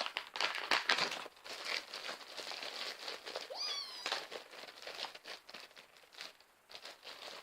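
Plastic bubble wrap and packaging crinkling and rustling as a laptop is unwrapped, in irregular bursts. A brief rising high-pitched sound cuts in about three and a half seconds in.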